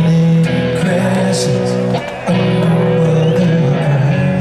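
Rock band playing live in concert: electric guitars, bass and drums through a loud PA, with sustained guitar notes over a heavy low end.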